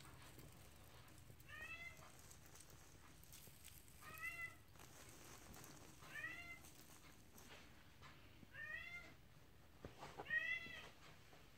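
A kitten meowing five times, short high calls about every two to two and a half seconds, the last one the loudest.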